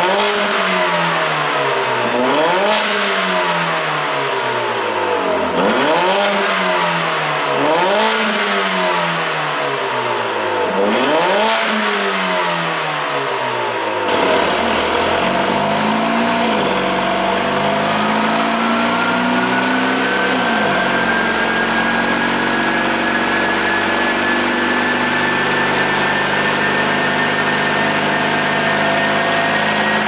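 Mercedes-AMG CLA 45 S's turbocharged 2.0-litre four-cylinder on its stock ECU map, blipped several times, each rev rising and falling. About halfway through, the car runs in gear on a dyno: the engine holds steady under a whine that climbs slowly in pitch.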